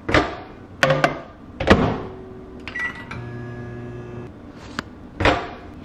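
A GE over-the-range microwave is loaded and started: the door clunks open and shut with a few knocks, a keypad beep sounds, and then the oven hums steadily as it begins heating. A click and a thump come near the end.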